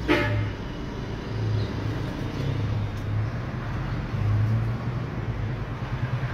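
Outdoor street ambience: a steady wash of road traffic noise with a low rumble that swells and fades, and a brief sharper sound right at the start.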